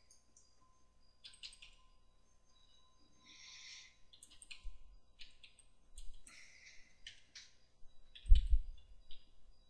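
Computer keyboard keys being typed in an irregular run of short clicks, entering a number. About eight seconds in there is a loud, low thump.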